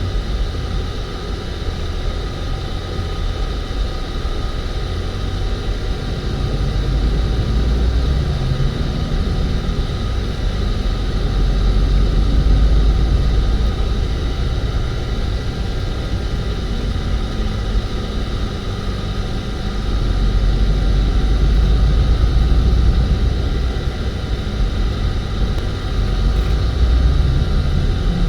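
Street traffic: a continuous low rumble of passing vehicles, swelling louder a few times.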